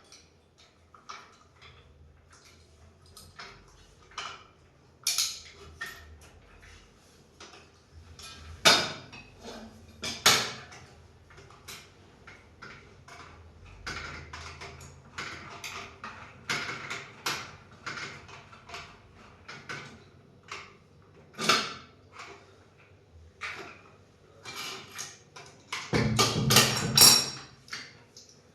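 Scattered metal clinks, taps and knocks, with a few louder knocks, as washing-machine stand parts and tools are handled. A longer clattering rattle comes near the end.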